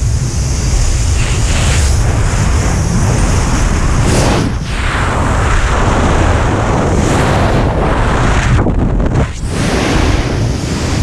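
Freefall wind rushing over the camera's microphone: a loud, dense rush of noise with brief swells and dips every few seconds.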